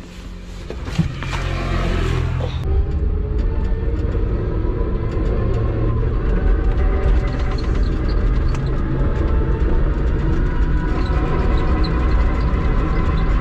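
Inside the cab of an electric three-wheeler as it pulls away and drives at about 28 km/h. A steady, loud low rumble of tyres on the road and of the body builds over the first two seconds. There is one sharp click about a second in.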